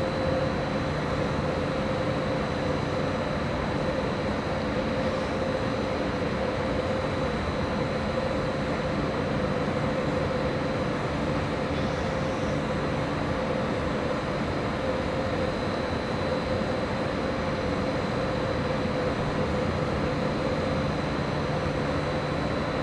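ÖBB class 1144 electric locomotive standing at the platform with its equipment running: a steady hum with a constant high whine that does not change.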